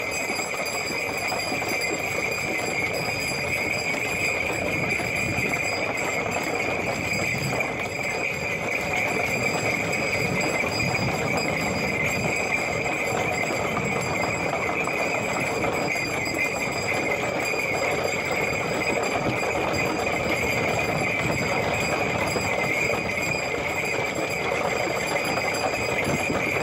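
A bullock cart drawn at a run by a pair of Hallikar bulls. There is a steady clatter of the cart and hooves, with a continuous high jingle of bells over it.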